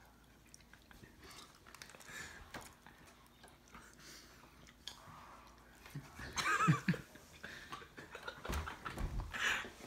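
Wordless human vocal reaction to the sour candy: a high, wavering squeal about six seconds in, then a louder noisy vocal burst near the end, with faint handling sounds before.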